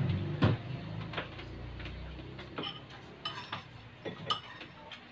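Irregular light clinks and taps of a metal spoon against ceramic bowls and plates while food is served and eaten at the table.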